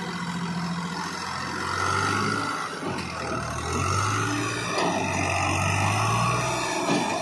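Farmatrac tractor's diesel engine running and being throttled up, its note rising about two seconds in and again from about four seconds before easing off.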